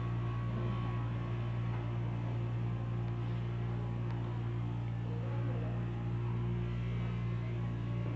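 Steady low electrical mains hum, even and unchanging, with a faint murmur of voices in the background.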